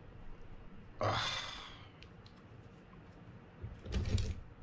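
A person's long breathy sigh about a second in, fading away, then faint clicks and a short knock from the reel being handled near the end.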